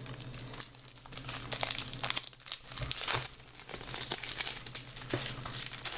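Plastic shrink-wrap being torn and peeled off a Blu-ray case, crinkling and crackling irregularly, loudest about halfway through.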